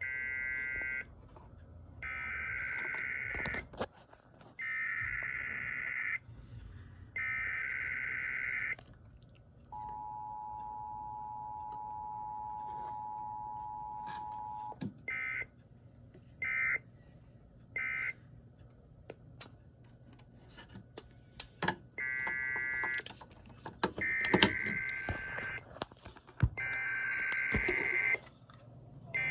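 Emergency Alert System tones over AM radio. A run of warbling, about one-second SAME header data bursts is followed, about ten seconds in, by the two-tone attention signal held for about five seconds. Then come three short end-of-message bursts, and about twenty-two seconds in another run of header bursts for the next relay, with static crackle and clicks between them.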